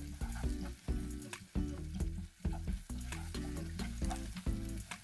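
Chopped onions sizzling in hot cooking oil in a saucepan as they are stirred, over steady background music.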